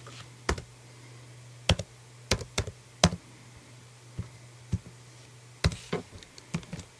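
Computer keyboard being typed on: about a dozen separate sharp keystrokes at an irregular pace, some in quick pairs, over a steady low hum.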